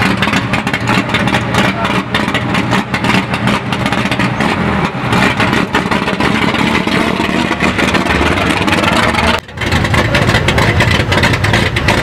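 Chevrolet Opala inline-six engine running at a steady idle. About nine and a half seconds in there is a brief drop, where the sound cuts to another Opala's engine.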